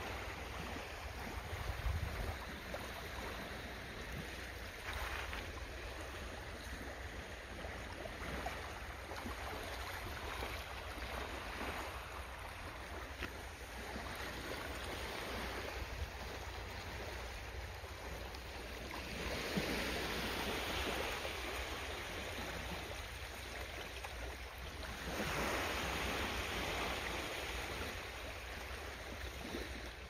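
Steady rush of moving water with a low rumble beneath it, swelling louder twice in the second half.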